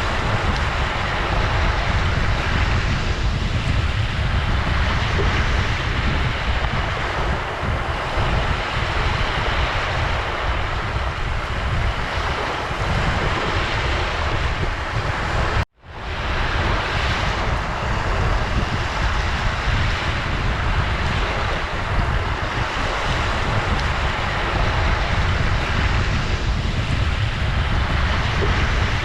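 Ocean surf washing in continuously, with slow swells as waves break and a heavy low rumble of wind on the microphone. About halfway through, the sound cuts out abruptly for an instant and fades back in.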